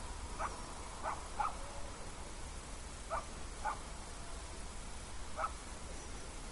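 Six short animal calls, two of them in quick pairs, over a steady hiss and low hum.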